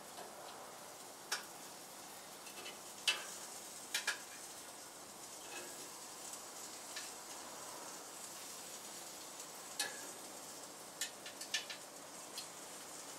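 Food sizzling on a hot gas grill under a steady hiss, with scattered sharp clicks and taps of metal tongs against the grill grate and a plate as pieces are lifted off.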